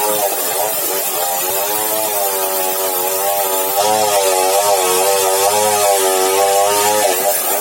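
Sawmill machinery running: a steady motor drone whose pitch wavers gently up and down, with a hiss above it.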